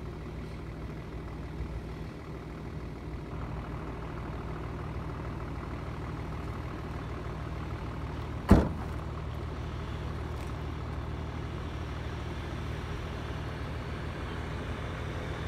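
A 4x4 off-road vehicle's engine running steadily as it ploughs through deep snow, getting a little louder after a few seconds as it approaches. A single sharp knock sounds just past halfway.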